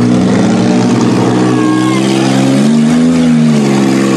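Demolition derby minivan engines running hard and steady, with the revs climbing and falling back about three seconds in.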